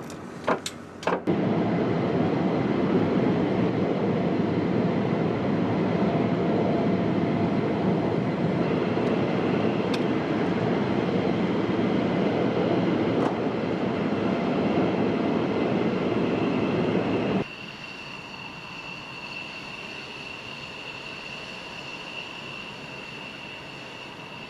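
A few sharp clicks, then a loud, steady jet-engine rush that cuts off suddenly about seventeen seconds in. A quieter, steady high turbine whine follows.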